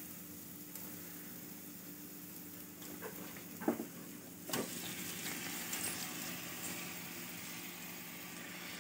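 Faint sizzling of hot ghee and fried onions in a steel pot as a thick paneer-and-vegetable masala is tipped in from a steel bowl. Two light clicks of metal on metal come about halfway through, and the sizzle grows a little louder after them.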